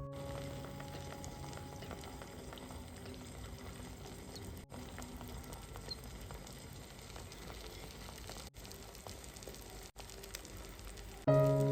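Food frying in a pan, a steady sizzle with small crackles and pops throughout, broken by three brief gaps.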